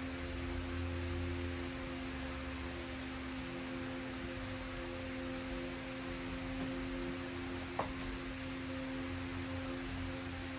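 Electric fan running steadily: an even rush of air with a constant electric motor hum. A single brief click about eight seconds in.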